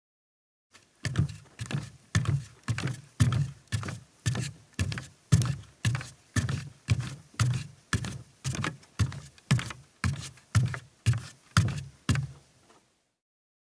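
Barefoot footsteps of a woman walking on a deck: a steady walk of about two soft, thudding steps a second, starting about a second in and stopping shortly before the end.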